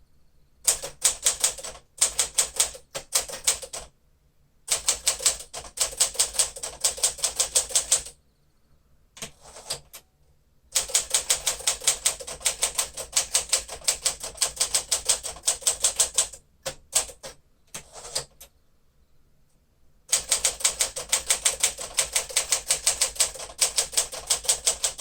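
A 1956 Smith-Corona Clipper manual typewriter being typed on quickly: long runs of rapid key strikes, several a second, broken by short pauses.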